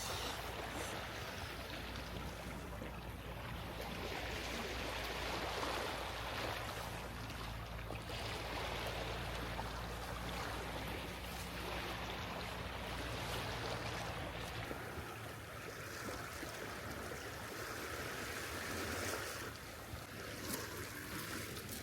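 Steady rushing outdoor ambience, with a low rumble under it that drops away about fifteen seconds in.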